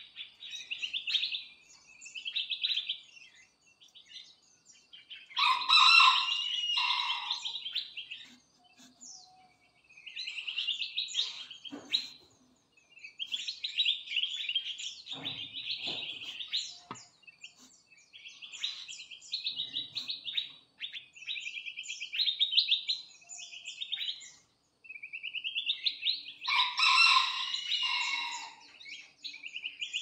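Mixed songbirds in an aviary chirping and twittering in quick, busy bouts with short pauses between. Twice, about six seconds in and again near the end, a louder, longer call with lower notes rises over the chirping.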